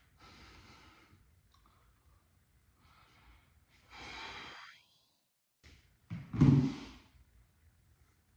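A man breathing hard from exertion during an ab workout: several audible breaths, then a louder voiced sigh or grunt about six seconds in.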